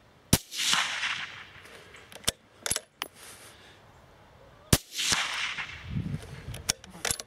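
Two shots from a .243 Browning X-Bolt bolt-action rifle fitted with a Wildcat Evolution sound moderator, about four seconds apart, each a sharp crack followed by about a second of fading echo. Between and after the shots come a few short metallic clicks as the bolt is worked to chamber the next round.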